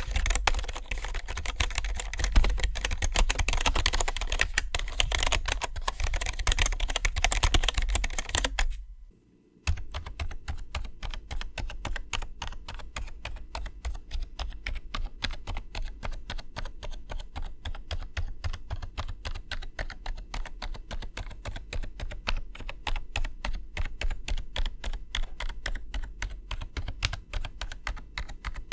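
Fast, continuous typing on a Bugha gaming keyboard from Five Below, a dense clatter of keystrokes. About nine seconds in the typing stops briefly, then resumes quieter and duller, with less treble.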